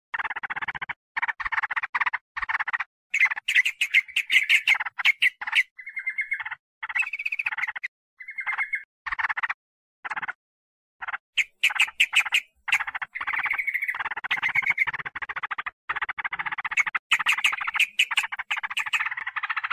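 Yellow-vented bulbul (trucukan) lure calls: bursts of fast, chattering notes separated by short pauses, with a few short, steadier notes about a third of the way in.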